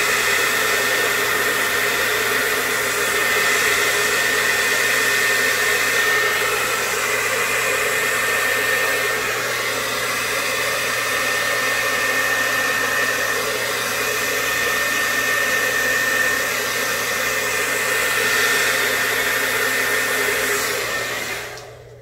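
Handheld hair dryer running steadily, a rush of air with a high whine, blowing wet acrylic paint across a canvas; it switches off near the end.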